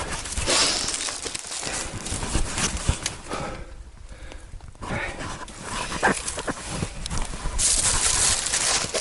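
Footsteps of a person climbing a very steep old hill road on foot: irregular steps with rustling, and a quieter stretch about halfway through.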